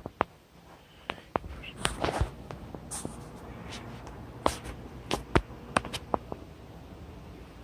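Irregular sharp clicks and knocks, a dozen or so, with a short rustle about two seconds in, as of handling and moving about a small room.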